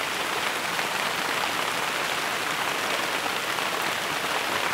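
Steady rain falling on a garden: an even, unbroken hiss of drops that keeps the same level throughout.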